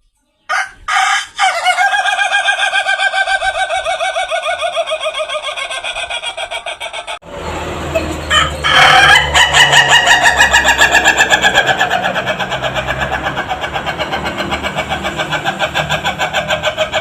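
Ayam Ketawa (laughing chicken) rooster crowing: two long crows, each a rapid run of short staccato notes that sounds like laughter. The second, about halfway through, is louder, with a low steady hum beneath it.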